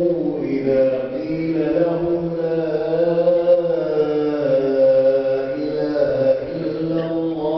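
An imam reciting the Qur'an aloud in a slow, melodic chant with long held notes: the recitation of the standing part of the congregational dawn prayer.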